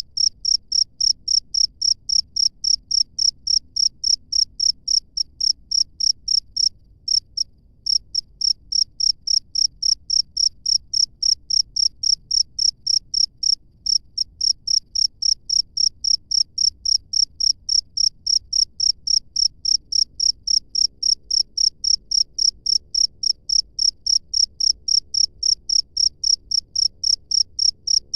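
A cricket chirping in a steady, even rhythm of about three high-pitched chirps a second, pausing briefly twice.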